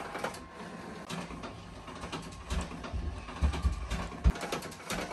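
Epson SureColor F570 dye-sublimation printer printing, its mechanism making irregular clicks and knocks with low thuds.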